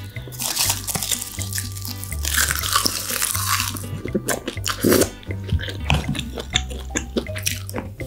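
Close-miked eating of marinated raw crab with rice: a long wet slurp in the first few seconds, then chewing with many small crunchy clicks. Background music with a stepping bass line runs underneath.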